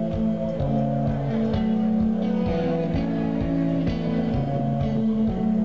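Instrumental post-rock band playing live through a large outdoor PA: electric guitars hold long sustained notes over bass, with drum hits at a steady beat of about two a second.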